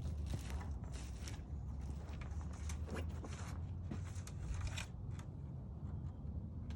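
Scattered clicks and rustles of an aftermarket plastic grille being handled and fitted into a car's front bumper cover, over a steady low rumble.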